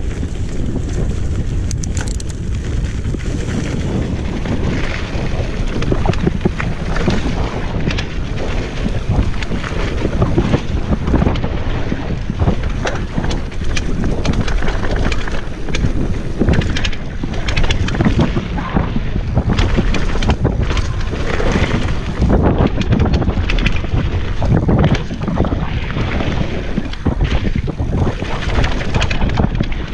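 Wind buffeting the microphone at speed down a mountain-bike downhill trail, with frequent sharp knocks and rattles from a Specialized Demo 8 downhill bike over rough dirt.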